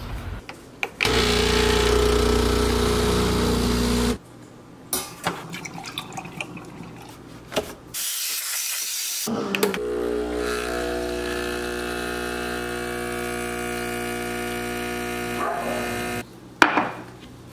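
Home espresso machine at work: a loud steady motor hum for about three seconds, a short hiss of steam from the steam wand about halfway through, then the pump's steady hum for about six seconds as an espresso shot pours into a mug. A few light knocks fall between the sounds.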